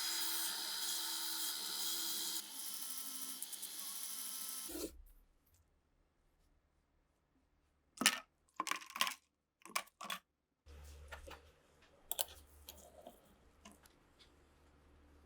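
A small high-speed power tool whines steadily and stops abruptly about five seconds in. After a pause, small metal parts clink and click sharply several times, followed by lighter ticks of handling.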